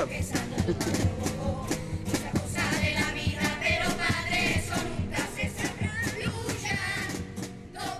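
Music: a children's carnival comparsa, a group of voices singing over instruments with a steady beat.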